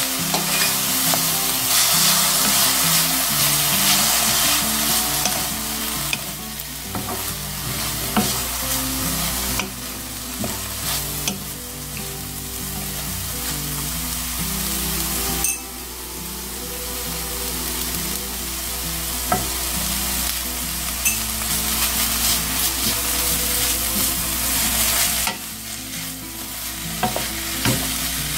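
Julienned burdock root sizzling in a wok as a splash of added water boils off, stirred and tossed with a wooden spatula that scrapes and taps the pan. The sizzle drops suddenly three times and builds back up.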